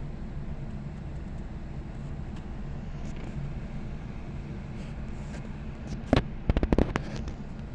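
Steady low rumble, with a sharp knock about six seconds in followed by a quick run of knocks and rattles.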